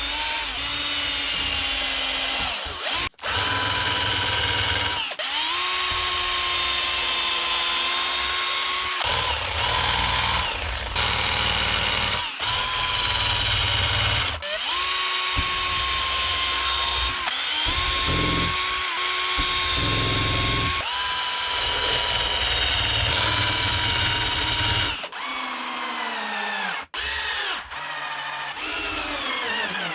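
A handheld electric power tool's motor running in repeated bursts of a few seconds, about eight in all, each spinning up to a steady whine, holding and winding down, with short breaks between; near the end it winds down with a falling pitch.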